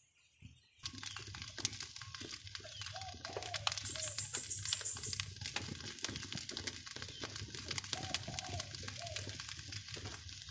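Open wood fire crackling with many sharp pops, under banana-leaf-wrapped rice cakes grilling on a metal sheet. A brief high trill sounds about four seconds in.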